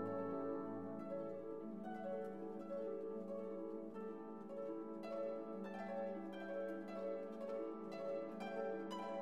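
Classical-style background music with plucked string notes over held chords.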